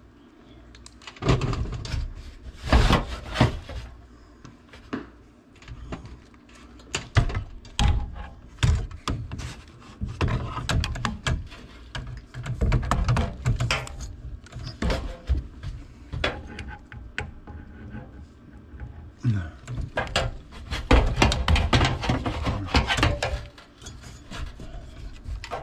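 Irregular knocks, clunks and scrapes of hand and tool work inside a sheet-metal air handler cabinet, around its ECM blower motor.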